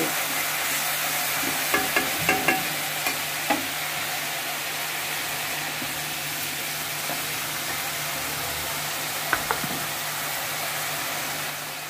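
Spice masala in mustard oil with a little added water sizzling and bubbling steadily in a wok as the water comes to the boil. A few light knocks of a spatula on the pan come about two seconds in and again near the end.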